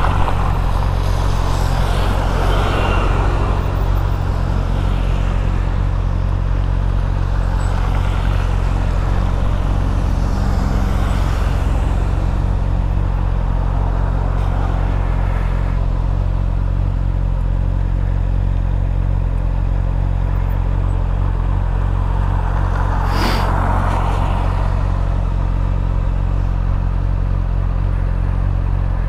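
Motorcycle engine idling steadily at an even pitch, with no revving. The hiss of passing traffic on the wet road swells up near the start and again later.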